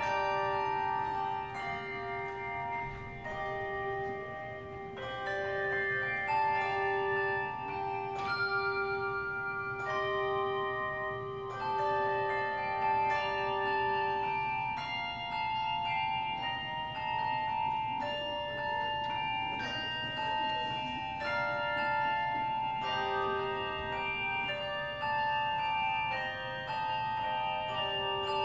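Handbell choir ringing a piece on brass handbells, many clear notes overlapping and ringing on. A low bell note is held under the tune for about the first half, and sounds again later.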